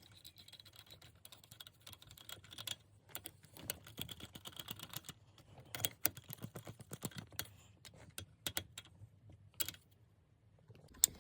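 Hand ratchet clicking in short, irregular runs while tightening the short shifter's mounting bolts, with a brief pause near the end.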